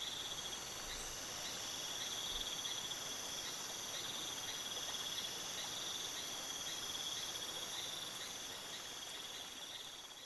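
Rainforest insects chirring steadily in a high, even trill with a light pulse a couple of times a second, over a thin high hiss of more insects. It fades out near the end.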